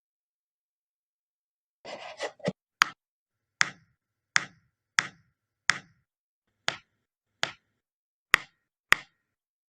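A brief rustle, then a series of nine sharp taps, each short and crisp, coming roughly one every three-quarters of a second.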